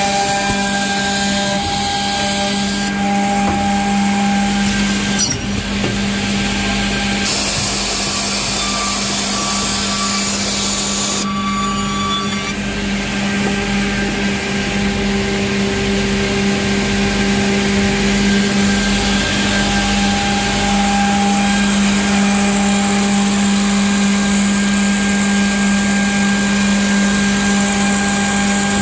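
Industrial edge banding machine running: its motors and dust extraction make a steady hum with one strong low tone over a constant rushing noise.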